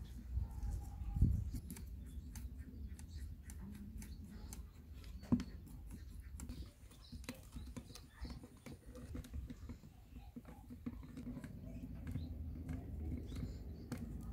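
Light metallic clicks and scrapes as a rusty miniature metal bicycle is handled and a screwdriver turns the screws of its seat. A sharper knock comes about a second in and another about five seconds in, over a low rumble.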